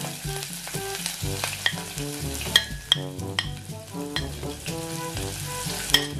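Sliced onion frying in hot cooking oil in a pot: a noisy sizzle with many sharp pops of spattering oil. The loudest pops come about two and a half seconds in and again near the end.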